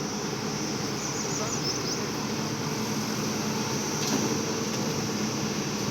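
Excavator engine running steadily under work.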